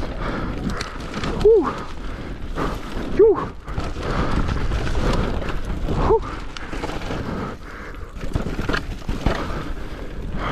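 Electric mountain bike riding down a frozen trail: steady wind and tyre noise with scattered knocks and rattles from the bike, and three short squeaks about one and a half, three and six seconds in.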